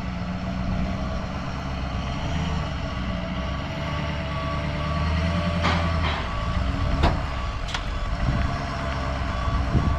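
Truck engine running low and steady while it manoeuvres with a trailer, a reversing alarm beeping over it. A few sharp knocks in the second half.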